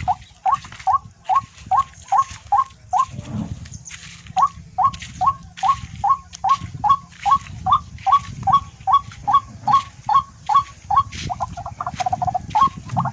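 A bird calling over and over in short, rising notes, about three a second, with a brief break about three seconds in.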